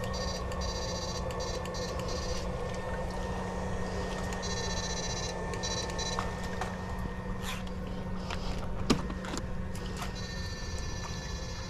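Electrofishing shocker giving off a high electronic buzz that cuts in and out three times as it is switched on and off, over a steady low hum. A few splashes or knocks come through, the loudest about nine seconds in.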